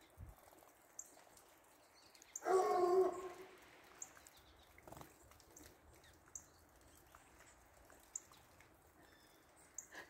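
A dog barks once, a drawn-out bay lasting about a second, a few seconds in. Faint, short, high chirps from small birds come every second or two.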